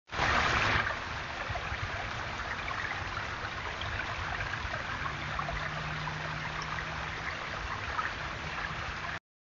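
Water trickling steadily over a small stacked-stone garden waterfall, with a louder burst of hiss in the first second.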